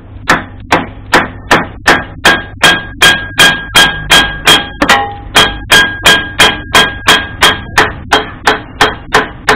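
Hammer blows on a wooden block held against the cast-iron cylinder head of an old Royal Enfield Bullet engine: a steady run of about 25 sharp knocks, roughly two and a half a second, with a faint metallic ring through the middle. The head is being knocked loose from the cylinder instead of being pried off.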